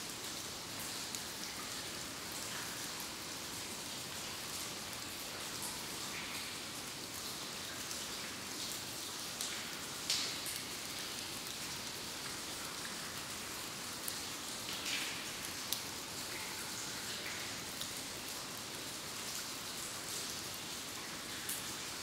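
Water dripping in a cave: scattered single drips at irregular intervals over a steady hiss, the loudest drip about halfway through.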